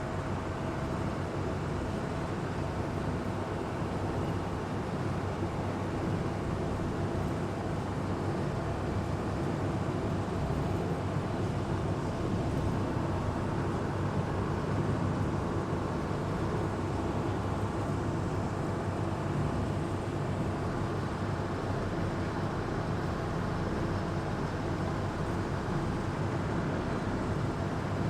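Amphibious Duck tour boat under way on the river, its engine giving a steady, unbroken drone.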